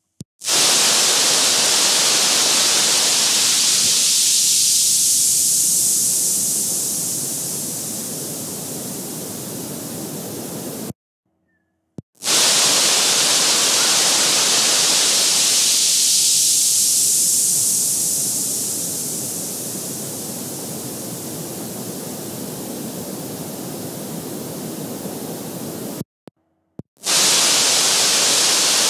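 Loud, steady static-like hiss that starts abruptly. In each stretch the high hiss fades over several seconds. It cuts out completely twice, for about a second each time.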